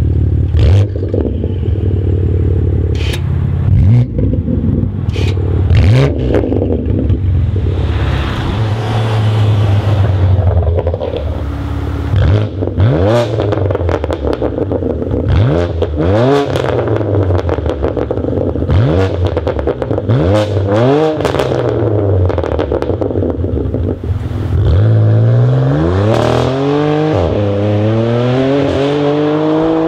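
BMW M4's twin-turbo straight-six through an active-valve sport exhaust with the valves open, accelerating hard through the gears: the revs climb and drop back with each shift, with sharp pops in the first few seconds.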